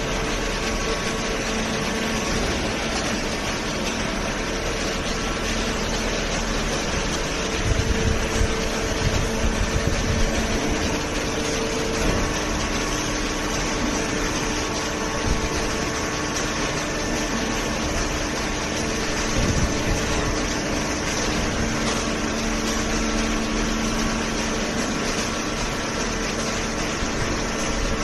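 Fully automatic hydraulic paper baler and its feed conveyor running: a steady mechanical drone with a faint hum of pump tones that swell and fade. A few louder uneven knocks come about eight to eleven seconds in.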